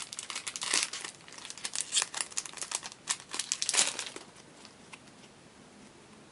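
Foil trading-card booster pack wrapper crinkling and tearing as it is pulled open and the cards are slid out, a dense crackle that is loudest and then stops about four seconds in.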